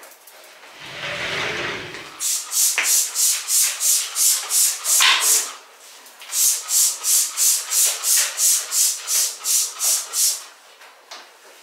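Hand trigger spray bottle squirting cleaner rapidly, about three short hissy squirts a second, in two runs of several seconds with a brief pause between them. A short rustling handling noise comes before the first run.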